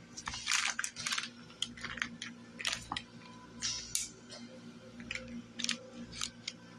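Kitchen knife slicing through a slab of set lemon fudge on parchment paper: a run of short, irregular scraping and tapping sounds as the blade cuts down through the fudge and presses on the paper.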